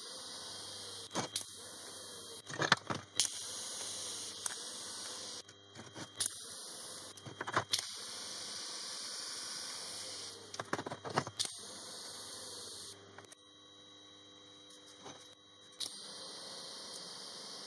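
TIG welding arc on steel plate, a steady high hiss at full 220 amps, with sharp crackles and clicks now and then and a low hum beneath. The hiss drops out about thirteen seconds in and comes back near the end.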